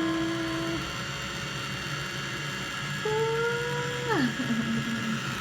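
A small electric motor hums steadily. About three seconds in, a higher held tone comes in for about a second, then slides sharply down in pitch.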